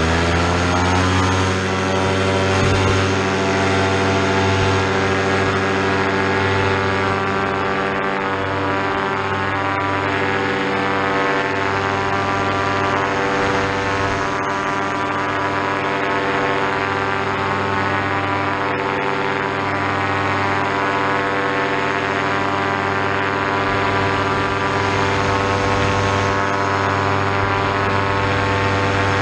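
Paramotor trike's Vittorazi Moster single-cylinder two-stroke engine and propeller throttling up over the first second or two, then running steadily at high power through the takeoff roll and climb-out.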